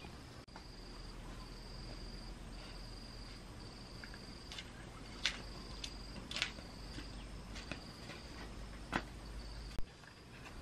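An insect trilling on one steady high note in runs of about a second with short breaks, while a few sharp clicks or snaps sound over it about halfway through and near the end.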